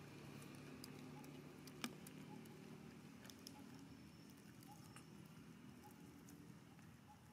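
Near silence: faint outdoor ambience with scattered soft ticks and clicks, one sharper click about two seconds in.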